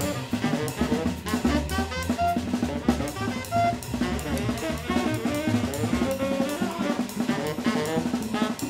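Jazz trio playing: tenor saxophone lines over upright bass and a drum kit, with frequent drum and cymbal strikes.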